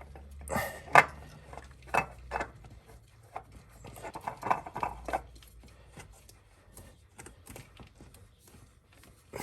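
Scattered clicks, taps and knocks of hands working with tools and parts, with a sharp knock about a second in and a cluster of taps around the middle, fading to light ticks near the end.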